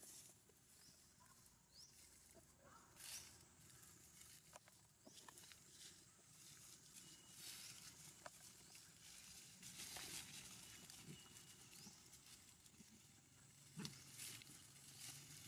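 Near silence with faint rustling of dry leaves underfoot, a few scattered clicks and several short, faint high chirps.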